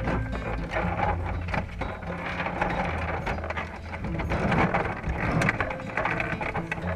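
Underwater sound picked up by a camera submerged in a wire crawfish trap: dense, irregular clicking and rattling over a low steady hum.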